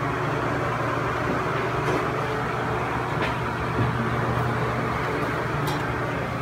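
Steady machine hum with an even airy hiss over it, unchanging throughout, with a few faint ticks.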